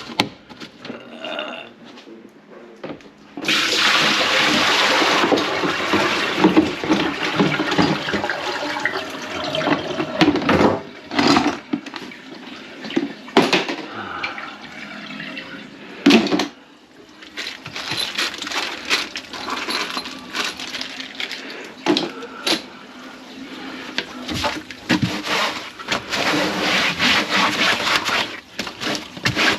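Water rushing through a kitchen sink and its drain line, which is clogged with grease, with several sharp knocks and clanks. The rush starts about three seconds in and drops away briefly a few times.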